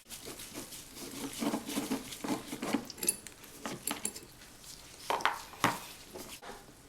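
Flathead screwdriver scraping and clicking against the spring clips on a car's AC evaporator housing as they are pried off, with a string of irregular small clicks and two sharper snaps about five seconds in.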